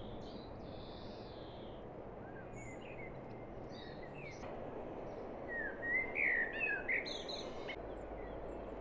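Songbirds chirping in short, quick sliding notes, the loudest a cluster of chirps about six to seven seconds in, over a steady background hiss.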